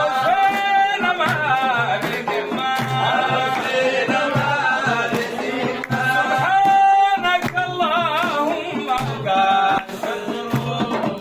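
Sudanese Sufi praise chant (madih): a voice singing an ornamented, wavering melody over a steady drum beat.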